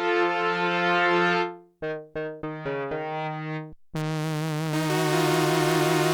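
Arturia MicroFreak synthesizer playing its presets: a held brass-like note fades out, then a few short staccato notes, and about four seconds in a bright, buzzy sustained tone starts, its overtones wavering.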